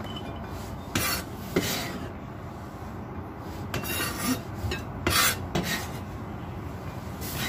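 Kitchen knife scraping and cutting on a cutting board while tempeh is sliced and pushed aside: about half a dozen short, irregular rasping strokes.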